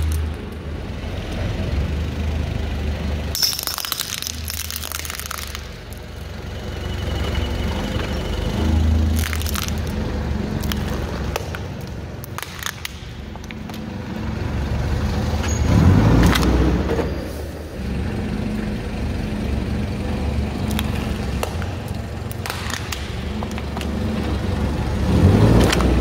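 Forklift engine running as its tyre rolls slowly over plastic toys and soft objects, with several sharp cracks of plastic breaking under the wheel.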